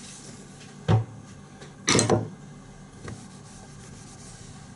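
A few knocks from objects being handled and set down on a hard surface: one about a second in, a louder short clatter a second later, and a faint knock after that.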